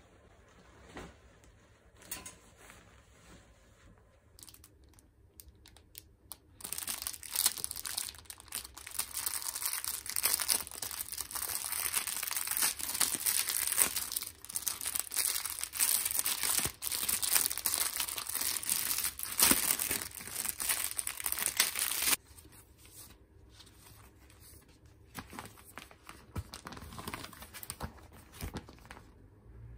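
Plastic overwrap of a microwave popcorn bag being crinkled and torn open by hand: a loud, dense crackle that lasts about fifteen seconds and stops abruptly. Softer rustling of the flat paper popcorn bag being handled and unfolded follows.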